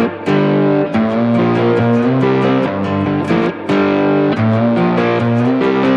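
Background music: a guitar track with plucked, slightly distorted electric guitar notes over bass, playing a melodic riff with regular note changes.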